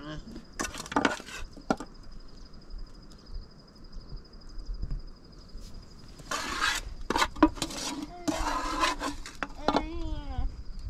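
Metal spoon scraping against a metal pan and serving tray while rice is dished up, in three rough scraping bouts, about a second in, around six and a half seconds, and near nine seconds. A cricket chirps steadily throughout.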